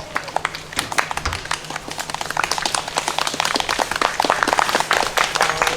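A crowd clapping: many quick, irregular hand claps that grow denser and louder after the first couple of seconds.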